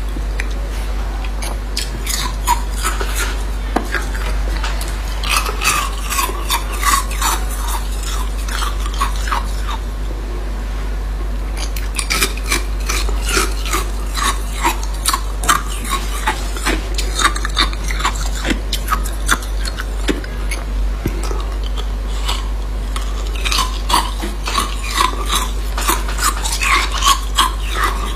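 Hard ice cubes being bitten and chewed: dense, sharp crunching and cracking in spells, with a couple of brief lulls. A steady low hum runs underneath.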